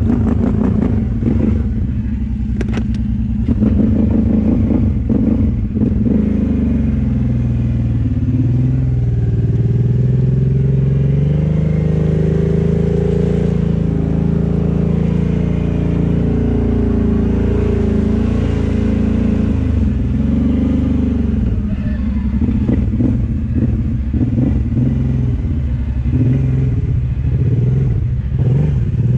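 Kawasaki Brute Force 750 ATV's V-twin engine running under throttle as the quad wades through deep water. Its pitch rises and falls with the throttle.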